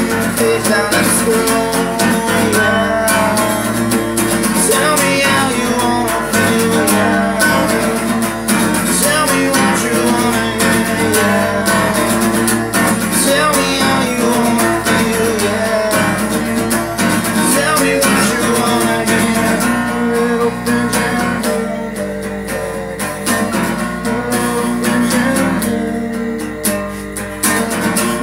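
Solo acoustic guitar playing an instrumental passage of picked notes and chords.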